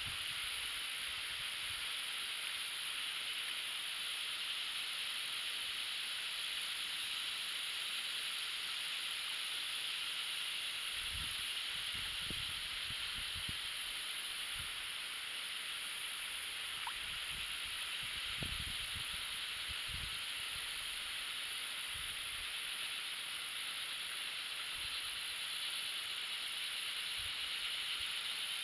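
Steady, even hiss of outdoor riverside ambience, with a few short low rumbles near the middle, the kind wind makes on a microphone.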